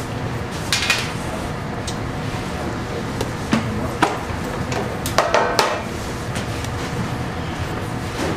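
Steady hum of a working food kitchen with a few sharp knocks and clatters, clustered about 1, 4 and 5 seconds in, as dough is handled on the worktable.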